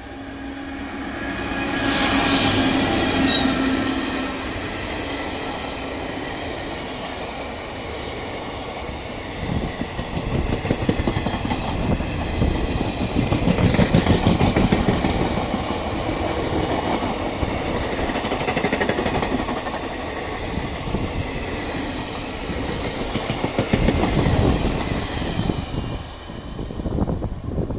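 Express passenger train passing close by: the electric locomotive goes past in the first few seconds, then the passenger coaches roll past with wheels clattering unevenly over the rail joints. The sound drops as the last coach passes near the end.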